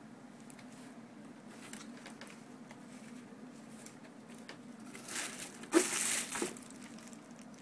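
Plastic packaging crinkling and rustling as a camera body is unwrapped, with light rustles at first and a loud burst of crinkling about five to six and a half seconds in.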